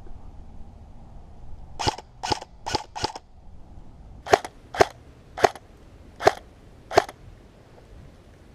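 Airsoft gun firing nine single shots: a quick group of four about two seconds in, then five more spaced further apart.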